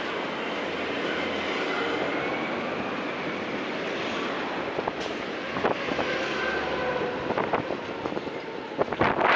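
City street and traffic noise heard from a moving bicycle: a steady wash of road sound with faint whining tones and a few clicks in the second half. Wind on the microphone rises sharply near the end.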